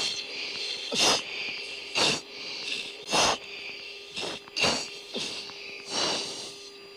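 Forceful, hissing breaths through an oxygen-mask microphone, five in all at roughly one every second and a bit: the rhythmic anti-G straining breathing of F-16 crew holding about 9.5 G in a turn. Behind them runs a steady cockpit intercom hiss and hum.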